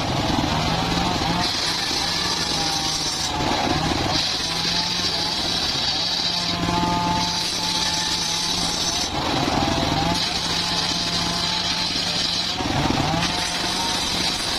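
Homemade circular sawmill running, its engine droning steadily while the blade cuts mahogany and teak. A high cutting sound comes and goes about every three seconds as the timber is fed through in repeated passes.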